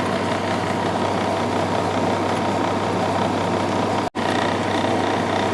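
Samsung 6,300 BTU window air conditioner running on high: a steady whoosh of the fan over the compressor's low hum. The sound cuts out for a split second about four seconds in.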